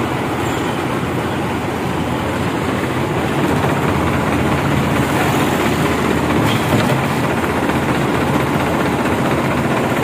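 Concrete pump truck running steadily, its engine and pump droning continuously while wet concrete is pushed out through the hose.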